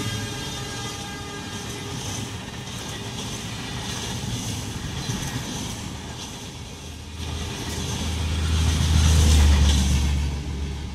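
Rear LHB coaches of an express train running past at speed: a steady rush of wheel and air noise with rail clatter. After about seven seconds it swells into a deep rumble that dies away as the last coach clears.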